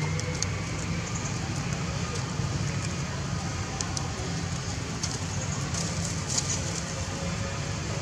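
Steady outdoor background noise with a constant low hum and scattered faint crackles.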